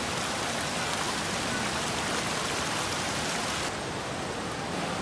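Steady hiss of rain falling, turning duller a little before the end.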